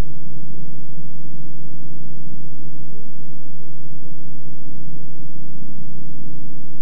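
Steady low hum, unchanging throughout, with a faint hiss above it.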